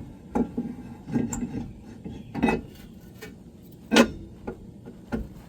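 Metallic clinks and scrapes from a new big-brake rotor being turned by hand against its dust shield, which it rubs in a few spots; about five sharp clinks, the loudest about four seconds in.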